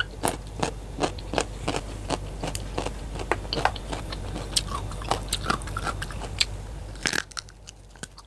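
Close-up crunchy chewing of raw vegetables, a quick run of crisp crackles as the food is bitten and chewed. A low hum underneath stops about seven seconds in.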